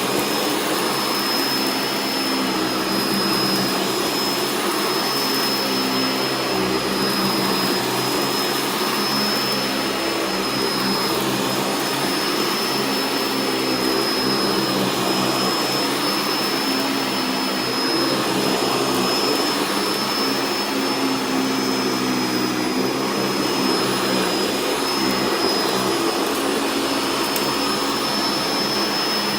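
Sanitaire upright vacuum cleaner running steadily over a rug strewn with rock salt, sucking up the salt. Its motor gives a steady high whine over the airflow.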